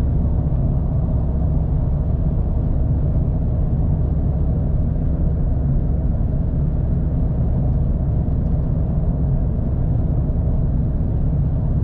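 Steady low rumble of road and engine noise inside a car's cabin while cruising on the highway.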